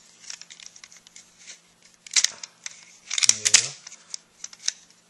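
Plastic Transformers toy figure and its accessories being handled: scattered light clicks and rustling, with two louder clattering clusters about two seconds and three and a half seconds in.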